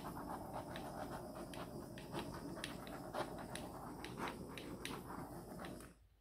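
Handheld torch burning, a steady hiss with crackling as the flame is played over a wet acrylic pour painting; it cuts off suddenly about six seconds in.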